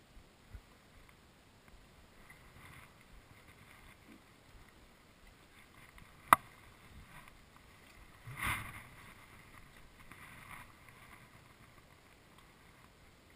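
Dogs eating from a bowl on a wooden floor: faint scuffing, a single sharp click about six seconds in, and a brief, louder scuffle about two seconds later.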